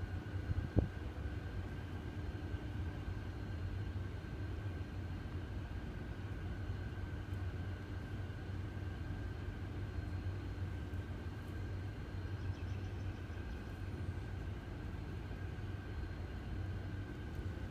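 Steady low mechanical rumble with a constant hum, the background of an urban spot. A single click about a second in.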